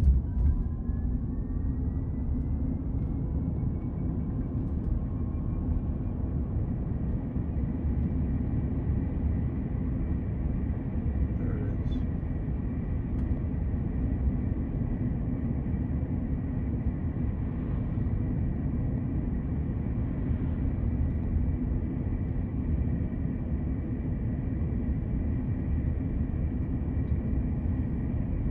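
Tesla Cybertruck front drive unit whining over a steady low road rumble. The whine rises in pitch over the first few seconds and then holds steady. It is the noise the owner takes for a front drive unit defect.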